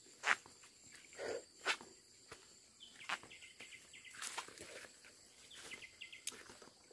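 Footsteps on a dirt forest trail, with irregular crunches of dry twigs and leaves about once a second, over a steady high-pitched drone of insects.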